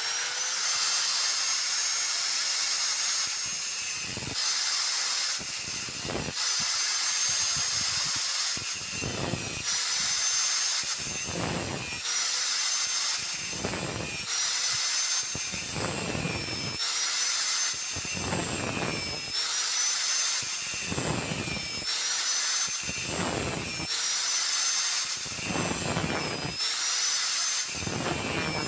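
Electric drill motor running at a steady high whine. A louder rough working noise swells and fades about every two seconds, as the spinning tool is worked against wood.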